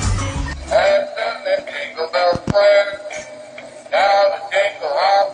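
A pop song with a bass line stops about a second in. After it comes a single voice singing in short, warbling phrases with pauses between them, and a couple of sharp clicks near the middle.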